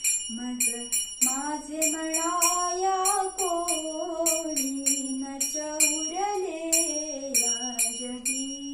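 A woman sings a Marathi devotional bhajan, holding and bending long notes without clear words. She keeps time with small hand cymbals struck about three times a second, their bright ring lingering between strokes.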